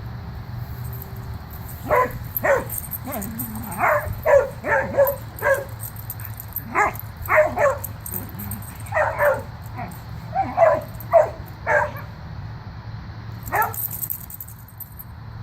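Dog barking in play, short barks in quick runs of two or three, about twenty in all, over a steady low rumble.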